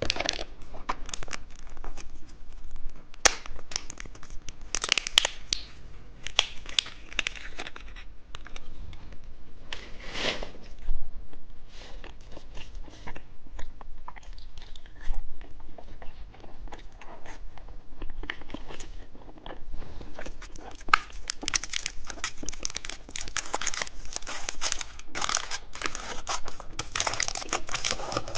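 Plastic candy wrappers crinkling and tearing as candies are unwrapped, with scattered clicks and taps. The crinkling grows denser and more continuous about two-thirds of the way through.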